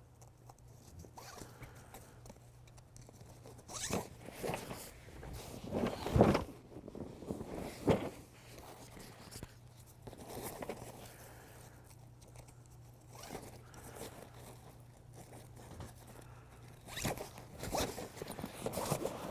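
Zipper on a fabric storage bag being pulled in several strokes, with a few sharp knocks among them.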